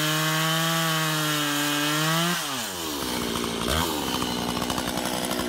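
Chainsaw running at full throttle through hard maple with a sharp chain, a steady high engine note. A little over two seconds in the throttle is let off and the engine note falls away to a lower, rattling idle, with one brief blip near four seconds.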